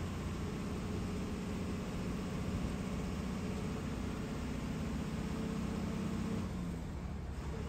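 KSRTC Minnal express bus engine running at road speed, a steady low drone mixed with road noise. The engine note shifts and briefly dips about seven seconds in.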